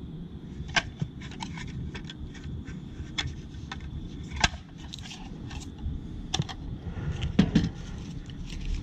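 Light, scattered clicks and scrapes of a plastic weatherproof outlet cover and box being handled and opened, with a few sharper snaps.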